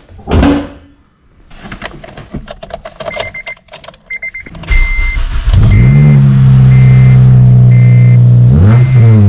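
Keys jangling and clicking, a chime beeping on and off, then about five seconds in the Acura RSX Type-S's 2.0-litre four-cylinder cranks and starts, settling to a steady high idle with a brief change in revs near the end. It is the engine's first start on fresh oil after an oil change.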